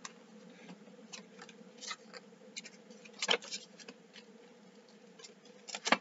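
Soft rustles and light clicks of a CD booklet's paper pages being handled and turned, with the sharpest tap about three seconds in, over a faint steady hum.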